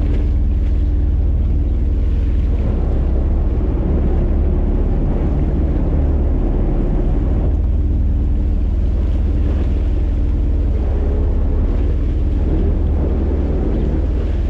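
Steady low rumble of a fishing boat's engine running, with wind buffeting the microphone and water washing along the hull.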